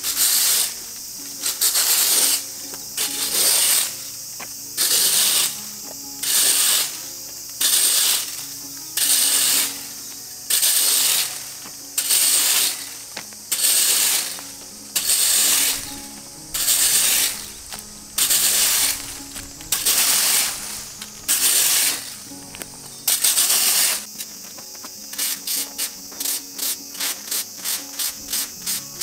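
Leaf rake scraping across an asphalt road, dragging twigs and dry leaves: one long scrape about every second, then quicker, shorter strokes, about three a second, over the last few seconds.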